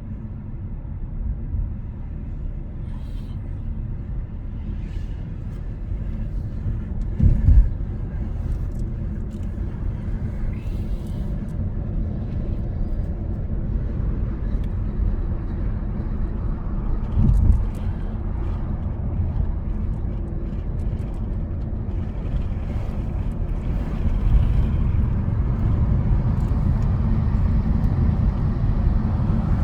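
Road noise inside a moving car: a steady low rumble of engine and tyres, with two brief thumps about a third and halfway through, growing louder near the end.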